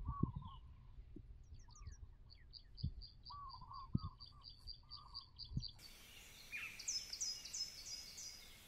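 Several birds calling outdoors: a fast run of high repeated notes and lower warbling calls, over a low rumble with a few soft thumps. About six seconds in the sound cuts to a hissier background with other birds' falling chirps.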